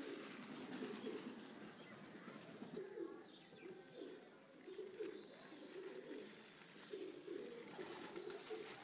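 Domestic pigeons cooing faintly, one low phrase after another.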